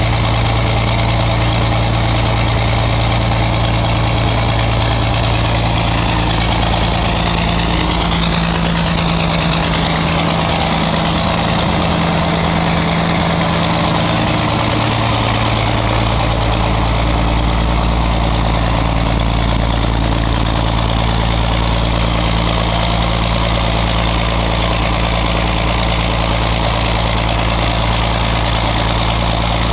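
John Deere 4630's turbocharged six-cylinder diesel idling steadily after a cold start in freezing weather, the engine not yet warmed up after a month unused.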